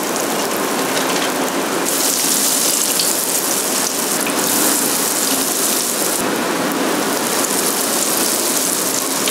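Beer-battered pieces of striped bass deep-frying in hot oil in a frying pan: a steady, loud sizzle with fine crackling.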